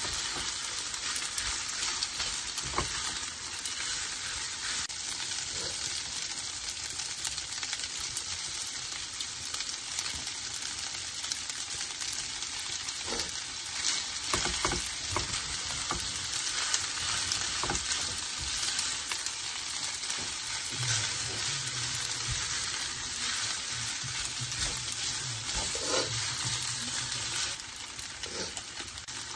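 Shrimp fried rice sizzling in a nonstick frying pan while two silicone spatulas stir and toss it, with soft scrapes and taps against the pan. Near the end the stirring stops and the sizzle goes on more quietly.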